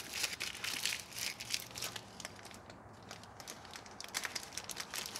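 Brown masking paper crinkling and crackling as it is twisted and squeezed around a doorknob: dense crackling for the first two seconds, then scattered small crackles.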